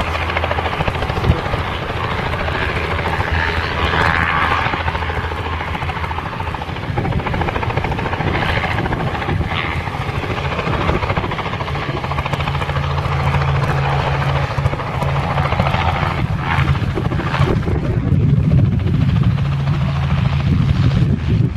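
Robinson R44 Clipper II helicopter hovering and moving low, its main rotor beating steadily over the running of its six-cylinder Lycoming piston engine. It grows louder near the end.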